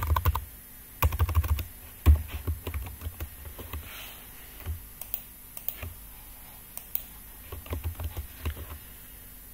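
Computer keyboard typing in several short bursts of keystrokes, with a few single clicks between the bursts.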